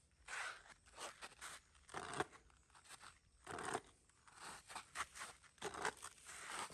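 Irregular scratchy rustling and scraping in short bursts, about a dozen over the span, with no pitched sound.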